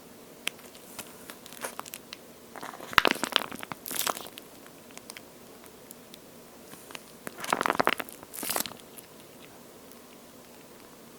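A water-filled squishy toy shaped like charcoal-grilled toast being squeezed by hand, making crackly, wet squishing. It comes in two spells, one about a quarter of the way in and one about two-thirds through, with a few small clicks between.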